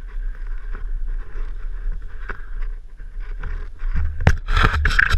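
Footsteps and scuffing on dry leaf litter and stony dirt, with scattered knocks and rubbing close to the helmet-mounted camera, loudest in the last second.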